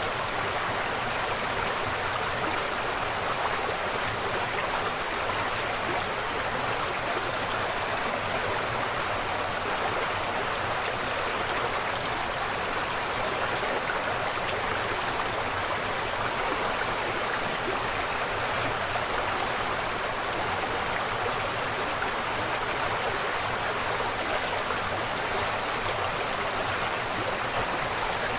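Waterfall: a steady, dense rush of falling water with no breaks, strongest in the middle and upper range.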